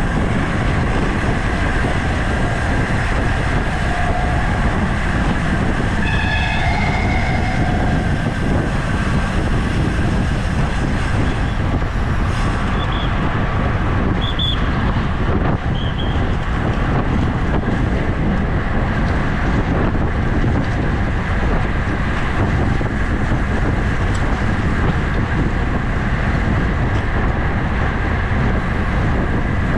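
Steady rush of wind on the microphone of a bicycle racer riding at speed. A few brief higher-pitched sounds come through about six seconds in, and short chirps follow around thirteen to sixteen seconds in.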